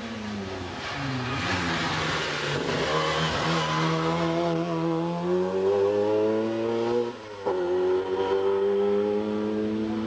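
Group A hillclimb race car's engine revving hard as it climbs, its pitch rising steadily under full throttle. There is a quick gear change about seven seconds in, after which it pulls and rises again.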